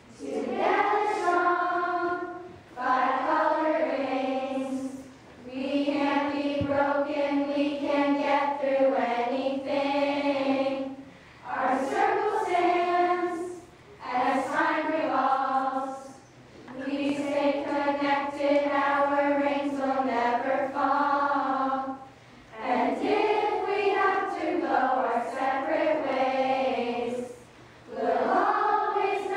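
A large group of girls singing together without accompaniment, in phrases of a few seconds broken by short pauses for breath.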